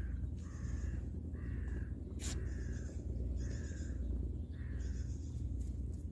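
A corvid giving a series of harsh caws, about one a second, each roughly half a second long.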